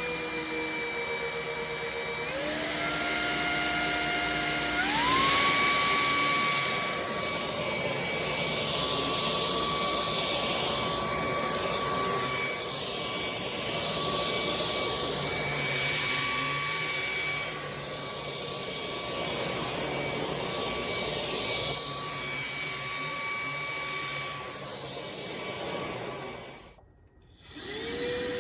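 Roidmi X30 Pro cordless stick vacuum's motor starting up and stepping up in pitch twice in the first few seconds as it is switched up through its power modes. It then runs with a steady high whine and a rush of suction noise that rises and falls. It shuts off briefly a couple of seconds before the end and starts up again.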